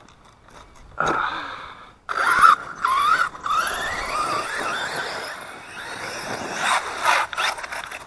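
Redcat BE6S brushless RC monster truck's motor and drivetrain whining as it drives. The pitch wavers, then rises steadily as the truck accelerates, and a few sharp knocks come near the end.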